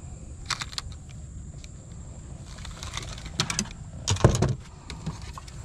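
Fishing rods and reels being handled on a small boat's deck: a few light clicks, then a louder knock a little over four seconds in as a rod is set down. A steady low rumble lies under it all.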